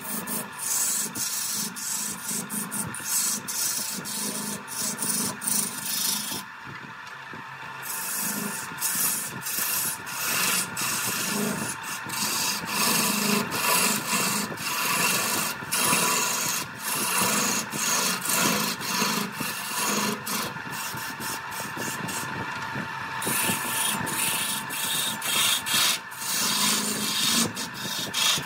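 Turning tool cutting a large wooden blank spinning on a wood lathe: a steady scraping hiss of the cut, dotted with many small ticks. The cut lets up briefly about seven seconds in and again about twenty-three seconds in.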